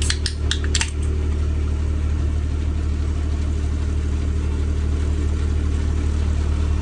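Delivery vehicle engine idling steadily, a low even hum. A few quick clicks sound in the first second.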